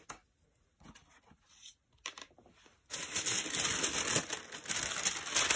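A few faint taps, then from about three seconds in a sheet of tracing paper rustling and crinkling as it is pulled across and laid over a drawing.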